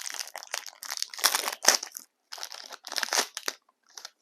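Trading-card packs and cards being handled, rustling and crinkling in irregular bursts that stop about three and a half seconds in.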